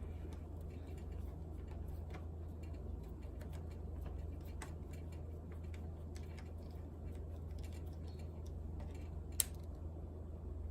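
Small, irregular clicks of a screwdriver working screws out of a laptop's plastic bottom case, with one sharper click about nine seconds in, over a low steady hum.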